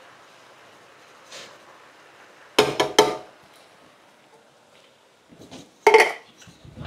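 Metallic clanks and knocks of a tin can against a cooking pot as canned diced tomatoes are emptied in: three quick ringing knocks about two and a half seconds in, then another loud clank near six seconds, with a few softer taps between.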